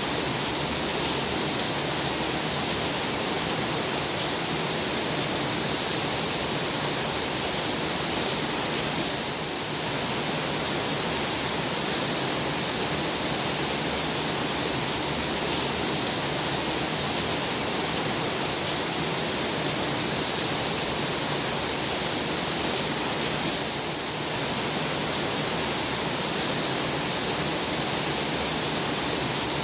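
Heavy rain falling steadily, a dense even hiss with no breaks, easing very slightly for a moment twice.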